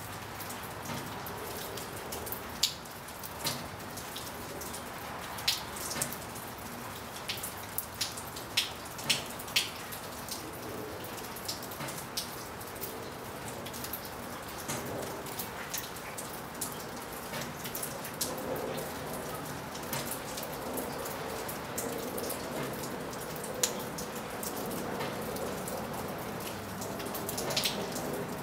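Steady rain, with single drops ticking sharply against a hard surface at irregular intervals, several in close succession around the middle.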